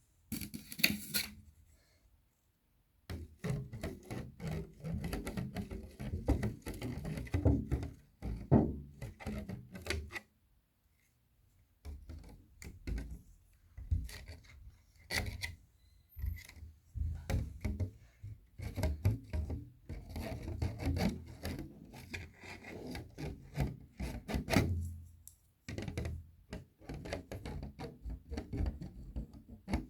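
Close-miked rubbing, scratching and tapping on a round cake box and its plastic lid, in busy stretches with short pauses about two seconds in, around ten to twelve seconds, and near twenty-five seconds.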